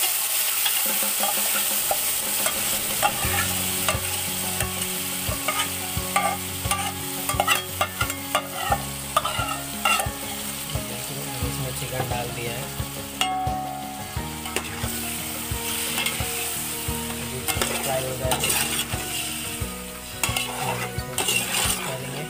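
Yogurt-marinated chicken masala sizzling as it fries on fried onions in a large aluminium pot, a steady hiss. A metal spoon stirs and scrapes the pot, giving many quick clicks and knocks, most of them in the middle of the stretch and again near the end.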